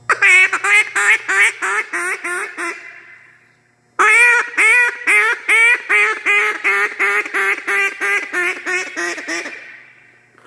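Duck call blown in two runs of quick, evenly spaced quacks: about ten, a pause of about a second, then about eighteen more that trail off softer near the end.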